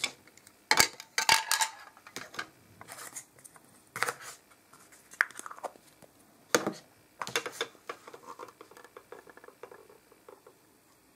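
Plastic toy dishes and play food being handled and set down: sharp knocks and clatters of plastic against plastic, five or six distinct knocks, then a run of light rattling near the end.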